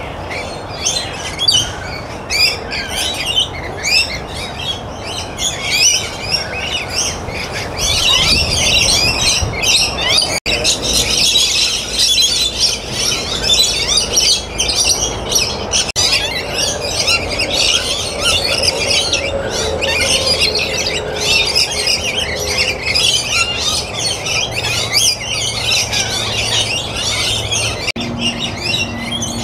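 Many birds chirping and squawking at once in a dense, continuous chorus of short, high calls.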